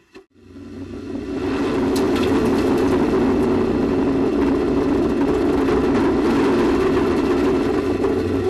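A loud, steady rushing roar that swells up over the first second after a brief cut and then holds even. It sounds like the noise carried by a space shuttle flight recording.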